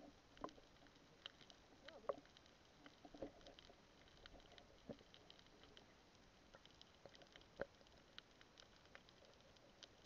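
Faint underwater sound: irregular scattered clicks and crackles, with a few louder pops about half a second in, around two seconds in and near eight seconds in.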